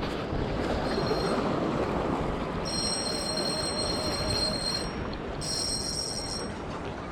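Steady rush of surf on a rocky shore mixed with wind on the microphone, with a thin high whine in two stretches in the middle.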